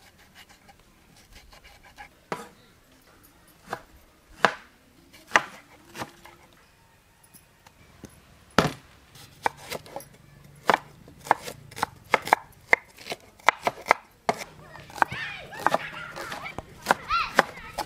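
Knife blade chopping vegetables on a wooden cutting board: scattered single knocks at first, then quicker, closer strokes through the second half as a cleaver shreds cabbage.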